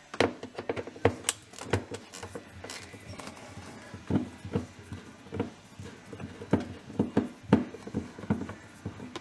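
Irregular clicks and knocks of the fridge's plastic inner cover and its clips being handled and worked loose by hand.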